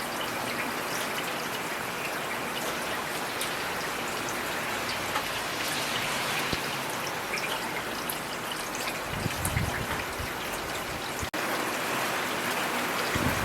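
Steady rainfall with individual drops tapping close by, and a brief low rumble about nine seconds in.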